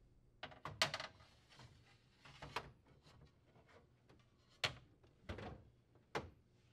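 Refrigerator platter shelf glass being set and pushed into its plastic frame: a scatter of light clicks and taps of glass on plastic, the sharpest about a second in.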